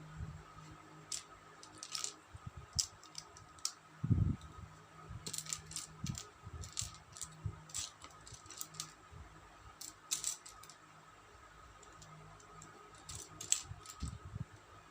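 Small plastic building bricks clicking and rattling as they are handled and snapped together, in scattered taps and clatters, with a dull bump about four seconds in.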